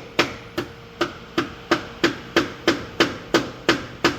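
Steady hammer blows, about three a second and about a dozen in all, driving a repair sleeve onto the broken end of a gearshift linkage rod. Each strike is sharp with a short ring.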